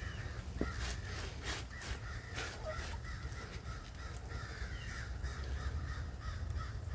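Backyard hens calling over and over in a chattering run, with a few sharp clicks about one to two and a half seconds in.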